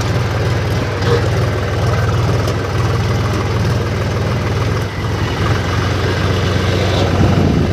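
HMT 5022 tractor's diesel engine running steadily, its even low throb heard close up from the driver's seat.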